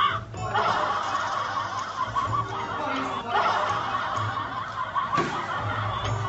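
Laughter runs on almost without pause, with a short break about three seconds in.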